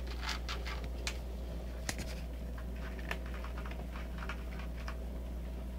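A kitten crunching dry kibble from a plastic tub: quick, irregular crunches and clicks, several each second, over a steady low hum.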